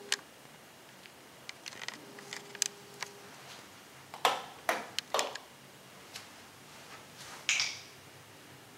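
Handling noise from a handheld camera in a quiet empty room: scattered clicks and knocks, a cluster of sharper knocks about halfway through, a short low hum early on, and a brief rustle near the end.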